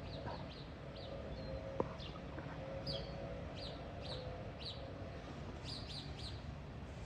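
Birds chirping: a dozen or so short, high, downward-slurred chirps at irregular intervals.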